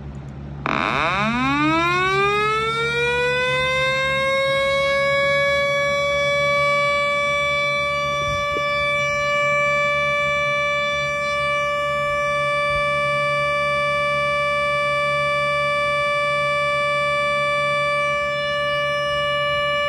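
Synthesized Federal Sign & Signal Thunderbolt 1000 outdoor warning siren (5MA2 blower, chopper level 5) played through laptop speakers. It starts under a second in, winds up in pitch over about four seconds, then holds one steady high tone.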